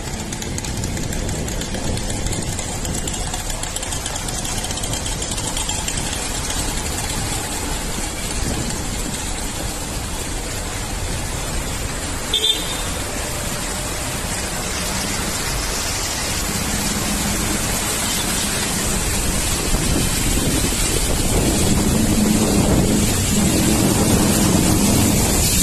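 A motor vehicle moving along a flooded road: steady engine and street noise with water sloshing. A short high beep, like a horn toot, sounds about halfway through, and the low engine hum grows louder toward the end.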